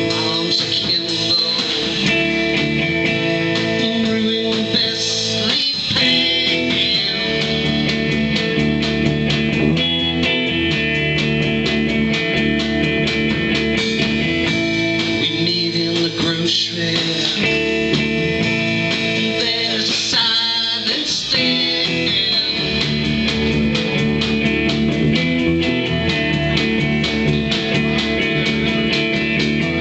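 A live band playing loud amplified music, with electric guitars over a drum kit and steady drum hits throughout.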